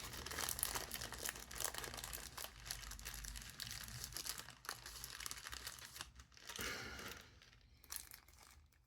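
Small plastic bag crinkling as it is handled: a crackly rustle with many tiny clicks for about six seconds, then a few fainter rustles near the end.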